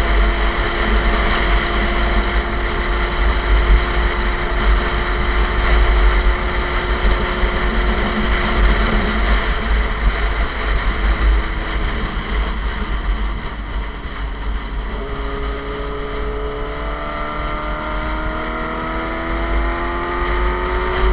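Suzuki GSX-R sport bike with an SC Project aftermarket exhaust, heard while riding. The engine note holds steady at cruising speed for the first half, then climbs gradually in pitch over the last several seconds as it accelerates. Heavy wind rumble on the microphone runs underneath.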